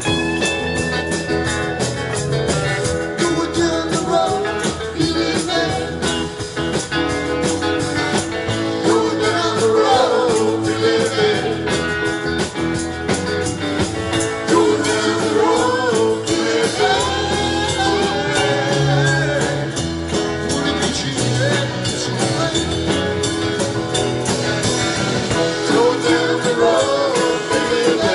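Live rock band playing a song: electric guitars, bass and drum kit with a steady beat, and sung vocals over them.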